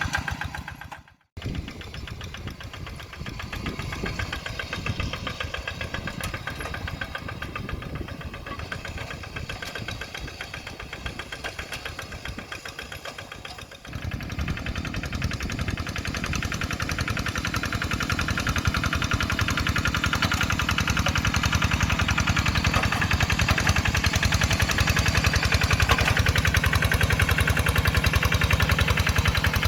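Kubota RD85DI2s single-cylinder diesel engine of a two-wheel hand tractor running with a rapid, even firing beat. It cuts out abruptly about a second in, comes back quieter, and about halfway through becomes louder and heavier, then runs steadily.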